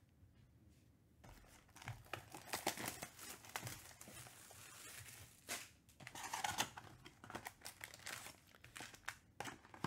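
Plastic shrink-wrap crinkling and tearing as it is stripped off a cardboard trading-card box, an irregular run of crackles starting about a second in.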